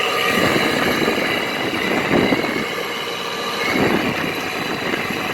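Frigidaire window air conditioner running, its fan and compressor giving a steady mechanical rushing noise with fixed whining tones, swelling briefly about two and four seconds in. The owner puts the racket down to horrible, worn bearings, the kind he hears in other Frigidaire units that run with bad bearings.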